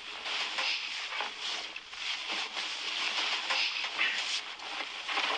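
Duvet and bedsheets rustling as someone climbs into bed and pulls the covers over herself, an uneven swishing of fabric.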